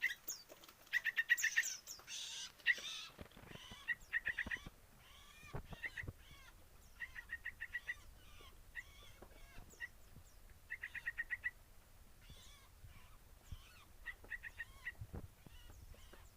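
Yellow-vented bulbul nestlings calling to beg while being hand-fed: repeated short bursts of rapid, high chirps, each burst lasting under a second, recurring every few seconds.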